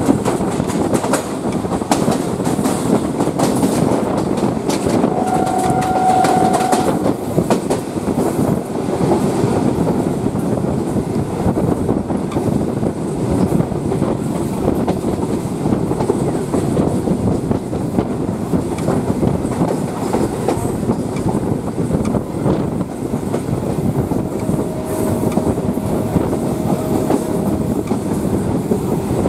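Indian electric multiple-unit local train running at speed, heard from its open doorway: a steady rumble with wheels clicking over rail joints. A short steady tone sounds about five seconds in, and a fainter one near the end.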